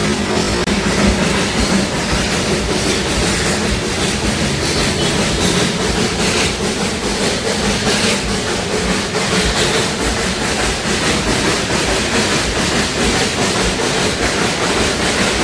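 Darjeeling Himalayan Railway narrow-gauge toy train running steadily, its wheels clattering over the rail joints.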